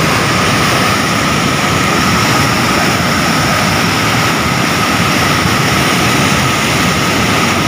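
Floodwater rushing and churning over a concrete river weir in a loud, unbroken rush: a river in flood after heavy overnight rain.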